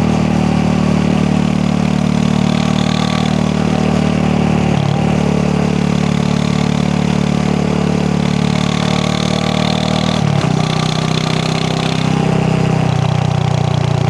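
Royal Enfield Classic 350's single-cylinder engine running with its steady 'dugg-dugg' thump. The engine note breaks briefly about five seconds in and again about ten seconds in, settling at a slightly different pitch after the second break.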